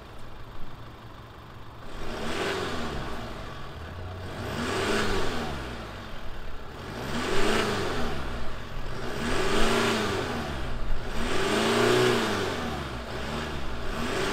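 2021 Chevrolet Colorado's 2.8-litre Duramax turbo-diesel inline-four idling, then revved repeatedly, each rev rising and falling in pitch, about every two and a half seconds.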